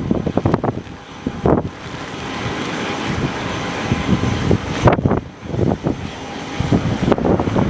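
Wind gusts buffeting the microphone in irregular low thumps over a steady rushing noise, in blizzard-like snowy wind.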